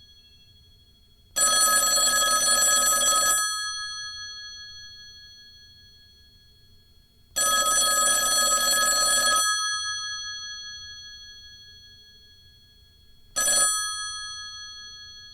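Telephone bell ringing. There are two rings of about two seconds each, six seconds apart, then a brief third ring near the end. The bells keep sounding and fade slowly between rings.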